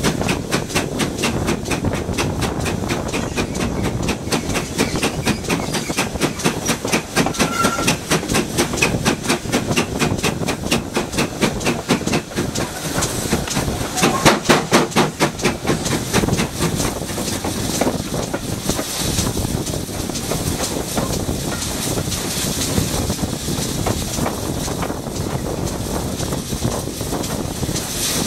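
Modified Hall 7903, a two-cylinder 4-6-0 steam locomotive, running close by with a rapid even beat over a rumble and hiss. About two-thirds through, the beats die away, leaving a steady rumble and hiss as it runs into the station.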